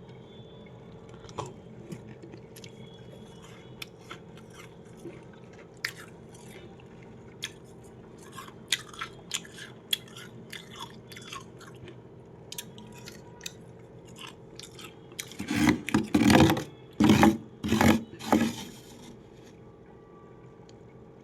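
Freezer frost being chewed: scattered small crackles and clicks, then a run of loud crunching bites a few seconds before the end, over a faint steady hum.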